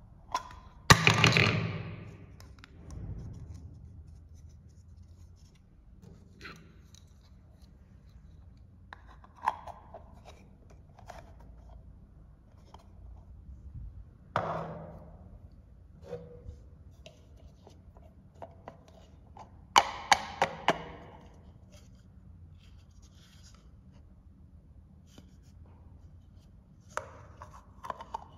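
Small hard-plastic toy pots, lids and utensils handled and set down on a tabletop: groups of light clacks and knocks, the loudest clatter about a second in and a quick run of sharp clicks about two-thirds of the way through, with quiet handling between.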